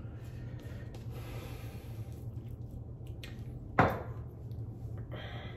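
A single sharp knock about four seconds in, like a hard object set down on a counter, over a steady low hum; a short hiss follows near the end.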